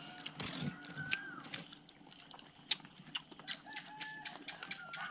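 Faint rooster crowing from a distance, a few drawn-out calls that rise, hold and fall, with scattered small clicks.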